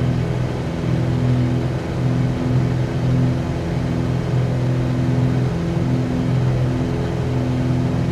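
Cessna 182Q's six-cylinder Continental O-470 engine and propeller droning steadily in flight, heard inside the cabin. Its low hum swells and fades about once a second.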